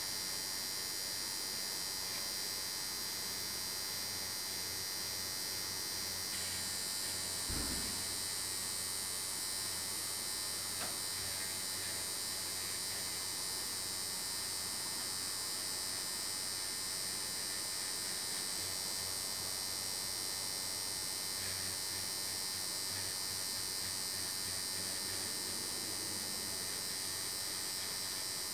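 Electric nail drill running steadily with a high whine as its cone-shaped bit works along the side of the nail and the cuticle. There is one brief low bump about seven and a half seconds in.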